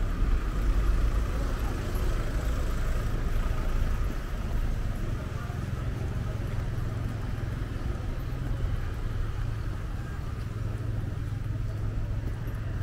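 Road traffic on a town street: cars running past and idling in a queue, a continuous low rumble that is a little louder in the first few seconds.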